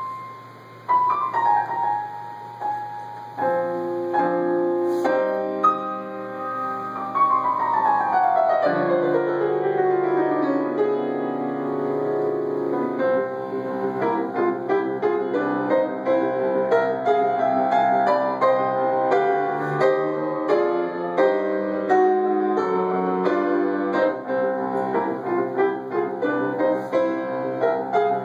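Grand piano played solo: a few single notes, then chords from about three seconds in, a long descending run of notes, and continuous playing after it.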